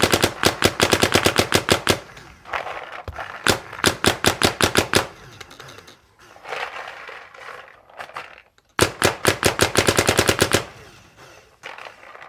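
Paintball marker firing rapid strings of shots at about ten a second, set to NXL ramping mode. The strings are separated by short pauses.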